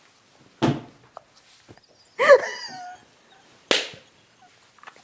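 Sharp slap-like hits, one about half a second in and another near four seconds, with a short high-pitched squeal between them. Laughter-type reactions in a small room, not speech.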